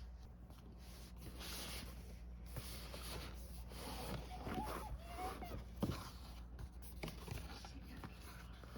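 Keyboard box and its packaging being handled and opened: rustling and scraping with a few light knocks, and a brief squeak about four and a half seconds in.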